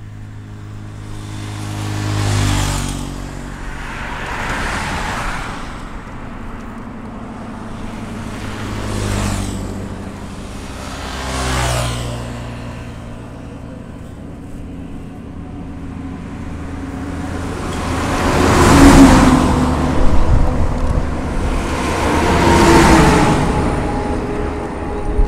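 Road traffic: vehicles passing close by one after another, about six passes, each swelling and fading away, the two loudest near the end.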